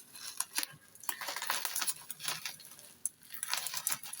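Plastic bubble wrap crinkling and rustling in irregular crackles as it is handled and pulled away from a packed box.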